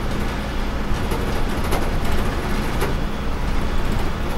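Sleeper coach bus driving at highway speed, heard from inside the front cabin: a steady low engine drone and road noise, with a few faint clicks or rattles.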